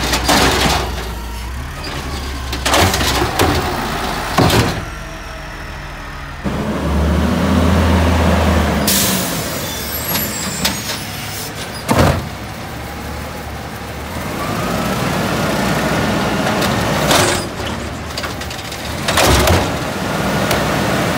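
Garbage truck at work: its engine running and revving up for a few seconds, with several loud bangs and clanks of bins and metal. A burst of air hiss comes about nine seconds in.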